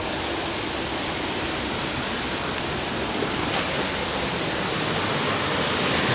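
Steady, even rushing noise outdoors, unchanging throughout.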